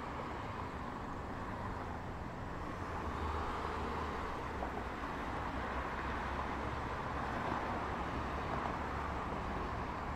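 Road traffic on a multi-lane road: a continuous wash of tyre and engine noise from passing cars, over a low steady hum, growing slightly louder about three seconds in.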